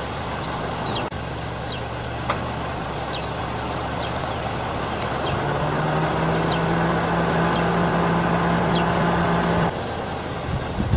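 A motor vehicle engine running steadily, rising in pitch about halfway through and cutting off shortly before the end, with short high chirps repeating throughout.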